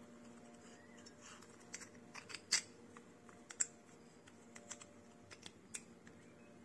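Small, scattered clicks and taps as the parts of a Lee bullet feeder die are handled and fitted back together by hand, over a faint steady hum.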